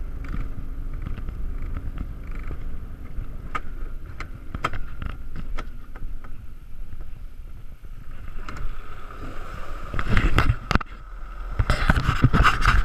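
Alpine coaster sled's wheels running along its tubular steel rail: a steady low rumble with a faint whine and occasional clicks. It grows louder and rattles hard about ten seconds in and again near the end.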